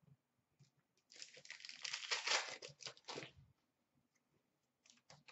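A hockey card pack's wrapper being torn open and crinkled, about two seconds of crackling starting about a second in.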